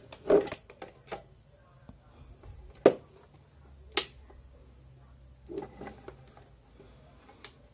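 Plastic clicks and knocks as a two-pin mains plug is pushed into the mini inverter's socket and the CFL bulb holder is handled, with two sharp clicks about three and four seconds in. A faint low hum starts after about three and a half seconds.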